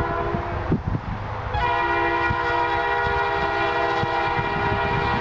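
Diesel locomotive's multi-chime air horn sounding a chord of several tones: a blast that stops under a second in, then, after a short gap, a long blast starting about a second and a half in. A low rumble runs underneath.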